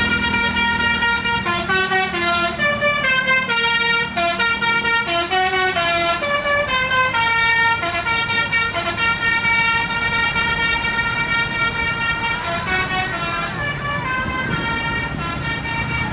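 Indonesian tour bus's telolet horn, a multi-trumpet musical air horn, playing a tune of quick stepping notes with a few longer held chords, over the bus engine running.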